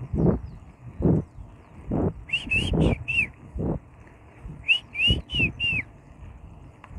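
A small songbird singing two short phrases of four or five quick arching notes each, about two seconds in and again about five seconds in. Under it, steady footsteps on the road shoulder, a little over one step a second.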